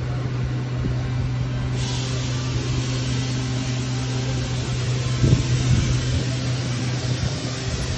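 Steady machine hum at one constant low pitch, with a hiss that grows brighter about two seconds in and a brief low bump a little after halfway.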